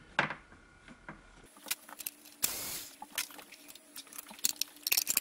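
Metal hand-tool work in an engine bay: a wrench clicking and clinking against bolts and a small steel bracket as the bracket is unbolted. A brief scraping noise about halfway, and a quick run of clicks near the end.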